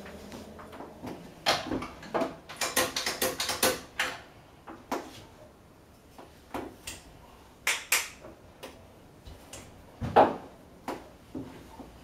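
Clacks and knocks of espresso gear being handled, the metal portafilter and the coffee grinder beside the machine. A quick run of clicks comes a few seconds in, and one loud knock about ten seconds in.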